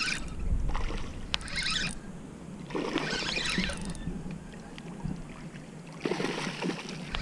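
Hooked bass splashing and thrashing at the surface in shallow water as it is pulled toward the bank, in four short bursts of splashing. A low rumble runs through the first two seconds.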